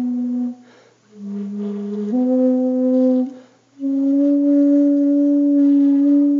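Background music: a slow melody of long held notes, broken by two short pauses, the last note held for over two seconds.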